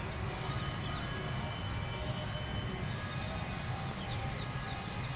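Steady low rumble of background noise, with a few faint high chirps about four seconds in.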